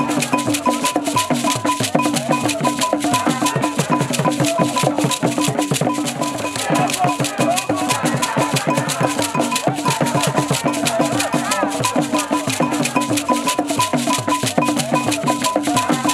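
Traditional Ewe festival percussion music: fast, dense rattle and drum strokes with a short high note repeating in an even pattern.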